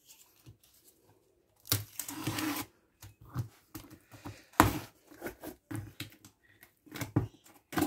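A utility knife cutting packing tape and cardboard on a box: a scraping slice about two seconds in, then a series of short clicks, scrapes and taps, the loudest a sharp click a little before the five-second mark.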